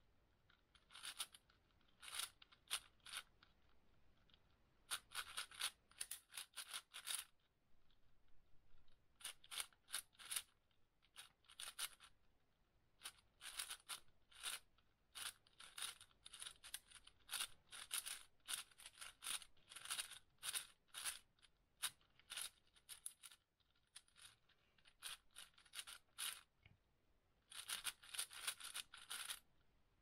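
A 6x6 speedcube being turned fast by hand: its plastic layers click and scrape in quick runs of turns, broken by short pauses.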